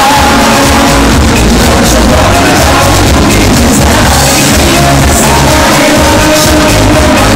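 Loud music with people shouting and yelling over it.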